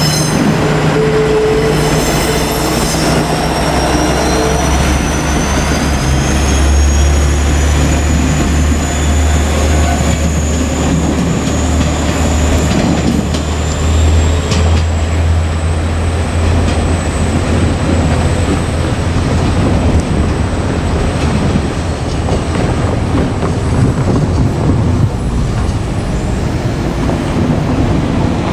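Two-car KiHa 47 diesel railcar set passing, its diesel engines droning low with wheels running on the rails. A thin, high wheel squeal rises in pitch and then holds steady. The engine drone fades after about fifteen seconds, leaving wheel and rail noise.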